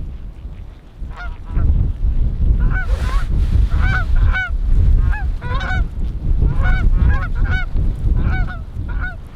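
Canada goose honks and clucks, many short rising-then-falling calls in quick, overlapping succession, over a low rumble of wind on the microphone.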